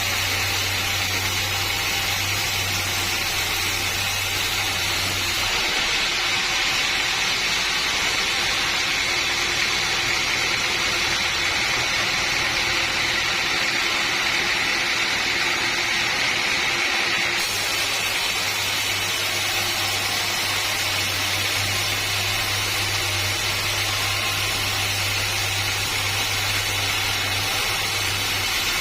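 Sawmill saw running steadily through a teak log, a continuous noisy machine sound. Its tone changes abruptly about six seconds in, losing its low hum and top end, and switches back about seventeen seconds in.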